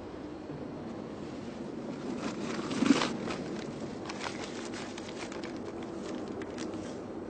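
Rustling and small clicks of things being handled inside a car, with one thump about three seconds in, followed by paper crinkling.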